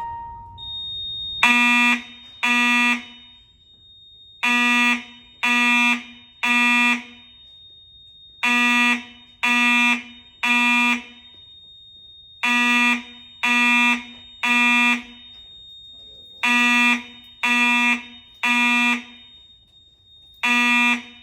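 FCI mechanical fire alarm horn blaring in the temporal-three evacuation pattern: three short, harsh buzzing blasts, a pause, then the three again, repeating about every four seconds.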